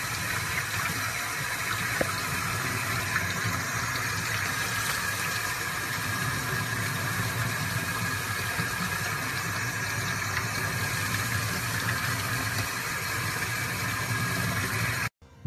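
Water running steadily from a sink faucet, pouring over a small puppy being washed under the tap. It cuts off suddenly near the end.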